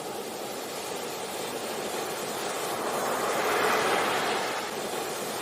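Ocean surf on a beach: a steady wash of waves that swells to a louder break a little past halfway, then eases off.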